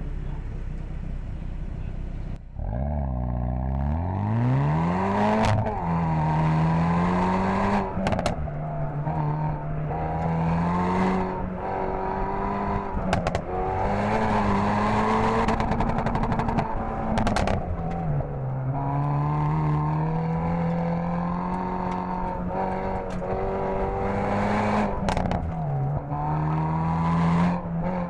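Hyundai Veloster N's turbocharged 2.0-litre four-cylinder driven hard: it pulls up from low revs about two and a half seconds in, then the revs repeatedly climb and drop back, with scattered sharp clicks and knocks.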